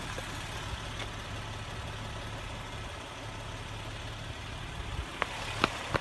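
A steady low mechanical hum with an even rushing noise over it, a machine running continuously. Two short clicks come near the end.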